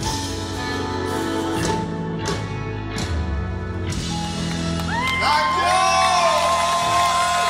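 A melodic death metal band's final chords ring out live, with a few drum and cymbal hits. About four seconds in, the crowd takes over, cheering with whoops.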